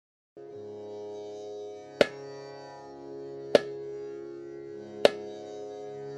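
Background music: a sustained drone that starts after a brief silence, with a single sharp drum stroke about every one and a half seconds.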